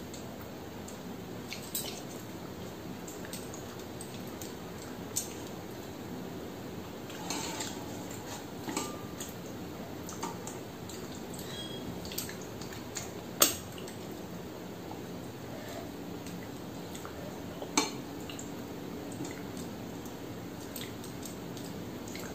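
Eating by hand from a stainless steel plate: fingers mixing and scooping rice against the metal, with a few sharp clinks on the plate, the loudest about halfway through, over a steady hiss.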